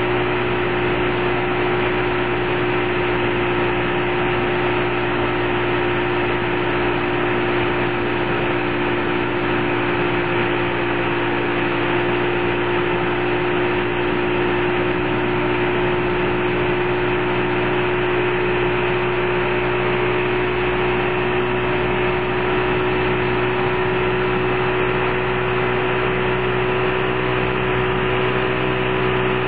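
Motorboat engine towing a wakeboarder, running at a constant speed: a steady hum that never changes, with an even rush of noise beneath it.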